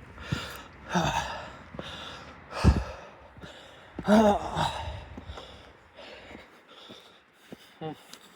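A man breathing hard, panting as he climbs uphill on foot, with a voiced, groaning exhale about four seconds in. A single thump comes near three seconds in.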